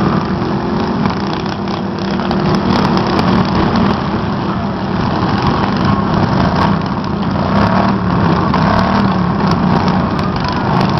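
Riding lawn mower engines running, with a steady engine drone over a dense background of noise.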